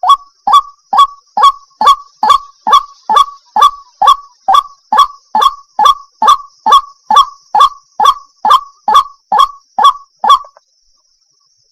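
Water hen calling a harsh, honking note over and over, a little over two calls a second in an even rhythm, stopping abruptly about ten and a half seconds in.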